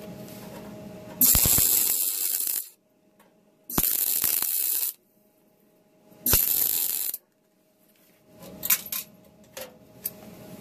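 Wire-feed MIG welder laying three short plug welds through holes in a sheet-steel sill panel, each a loud burst of arc noise lasting about a second with short pauses between. Near the end come sharp metallic clicks from locking pliers being handled.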